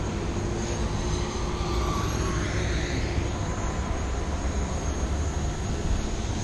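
Radio-controlled model airplane's motor whining faintly as it flies by, its pitch gliding over the first few seconds, over a steady low rumble.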